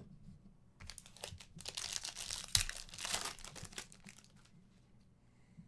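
Foil wrapper of a Panini Prizm basketball card pack being torn open and crinkled: about three seconds of crackling rustle with one sharp rip partway through.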